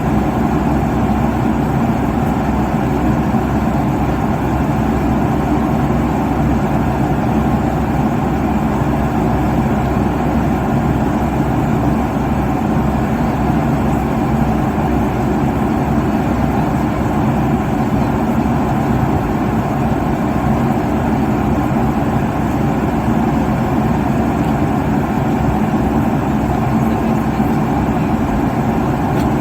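Steady roar of jet engines and airflow heard inside an airliner cabin at cruise, a constant deep rumble with a faint steady hum.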